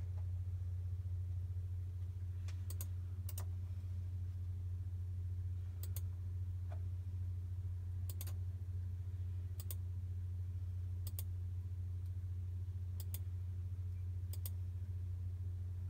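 Mouse clicks on a security-camera recorder's playback controls, mostly quick pairs every one to two seconds, as the recorded footage is stepped back. Under them runs a steady low hum.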